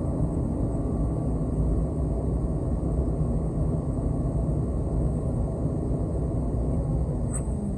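Concrete mixer truck running steadily, a continuous low engine rumble.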